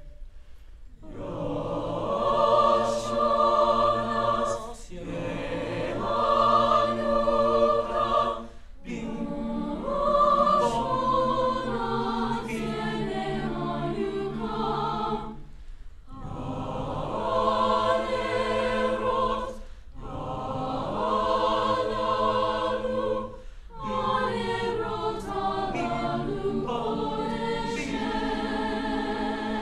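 School choir singing long held chords in phrases of a few seconds, with short breaks between phrases.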